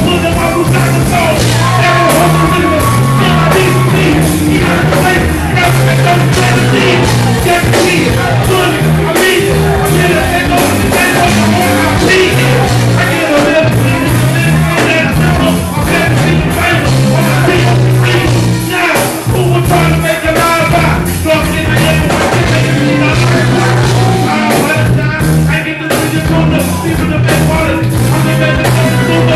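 Loud live band music with a steady beat, a pulsing bass line and singing, heard through the venue's sound system.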